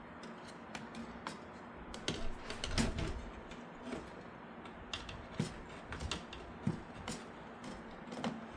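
Irregular clicks, taps and small knocks of hard parts being handled, over a faint steady hum.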